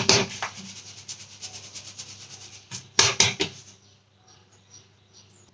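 Whole wheat flour being sifted through a hand-held sieve: a light steady rasp as the sieve is shaken, with sharp knocks as it is tapped, loudest in a cluster about three seconds in, stopping about four seconds in.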